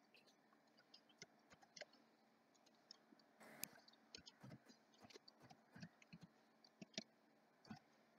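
Faint computer keyboard typing and mouse clicks: short, irregular clicks, with a brief rustle about three and a half seconds in.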